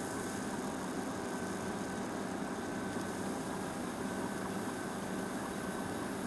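Japanese senko hanabi sparkler burning, giving off a steady, unbroken fine crackling hiss.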